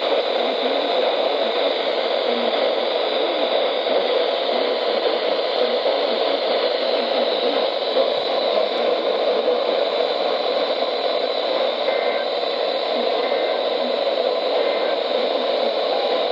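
Steady static hiss from a weather radio receiver with no voice on the channel, an even, unchanging rush of noise that sounds thin, as through a small speaker.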